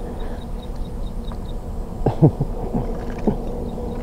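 Steady drone of insects with faint rapid chirping high up, and a few quick downward-sliding sounds about two seconds in and once more near the end.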